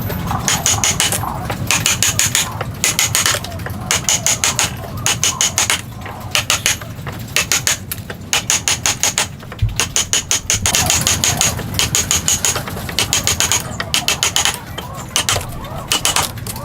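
Woodworking strikes on timber: rapid bursts of sharp knocks, several a second, repeating with short pauses between them.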